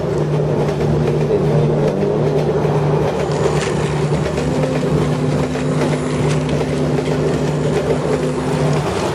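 Battery-powered plastic toy train running: a steady electric motor hum with clicking gear and wheel rattle, a second higher steady tone joining about halfway through and stopping just before the end.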